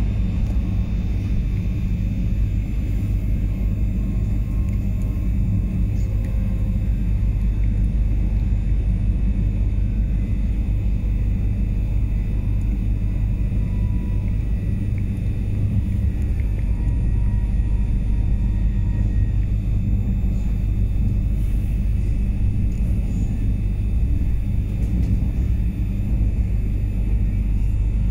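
Pesa Elf electric multiple unit running, heard from inside: a steady low rumble of wheels on rail and running gear.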